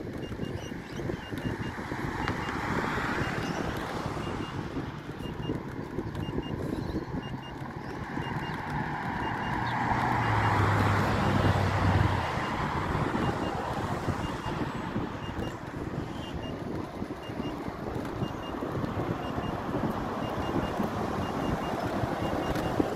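Wind rumble on the microphone and road noise while riding an electric unicycle beside a road, with a faint high double beep repeating about once a second. A vehicle passes on the road, loudest about ten to twelve seconds in.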